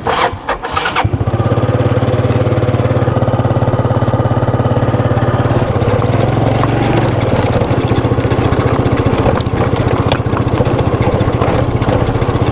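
Scooter engine starting about a second in, then running steadily.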